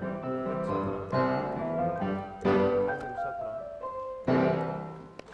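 Upright piano played four-hands by a child and her teacher: running notes broken by three loud chords, each left ringing, dying away at the close of the piece.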